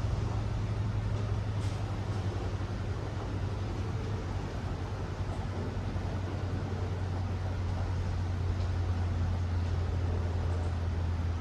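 A steady low mechanical hum with a faint rushing noise over it, dipping slightly in the middle and then rising again.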